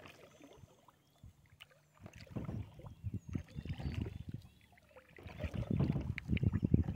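Kayak paddle strokes: the blade dipping and splashing in pond water, with light knocks, starting about two seconds in and coming faster near the end.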